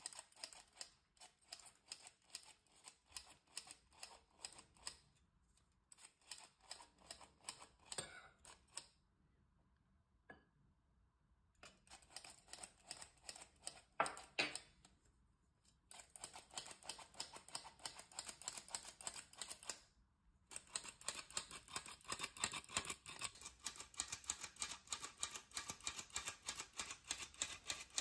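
Metal squeeze-handle flour sifter being worked in quick strokes: a fast run of sharp clicks from the handle and agitator. It stops for about two seconds near the middle and briefly again later.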